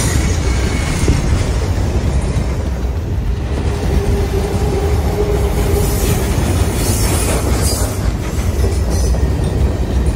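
Steel iron-ore hopper wagons of the Mauritanian ore train rolling past close by: a steady, heavy rumble of wheels on rail, with a faint squealing tone from the wheels in the middle.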